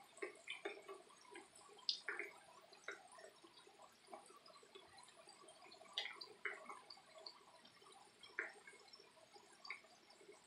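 Potato fries deep-frying in a pan of hot oil: faint sizzling with irregular small pops and crackles, a few louder ones about two and six seconds in. The fries are nearly done.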